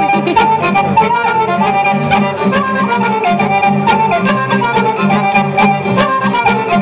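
Serbian folk band playing a dance tune, a bowed lead melody over guitar accompaniment with a steady beat.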